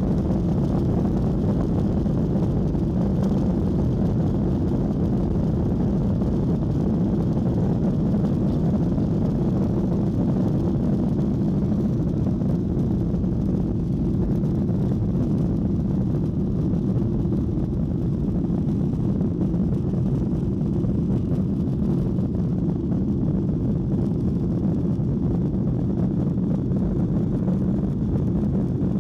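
Cabin noise of a Boeing 737-900's CFM56-7B turbofans at takeoff thrust, heard through the fuselage beside the wing: a steady low rumble through the takeoff roll and initial climb.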